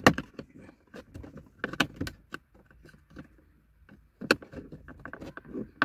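Hard plastic clicks, creaks and scrapes from a car's dashboard air-vent housing being pried and wiggled by hand to free its retaining clips. Scattered sharp clicks with quieter scraping between them.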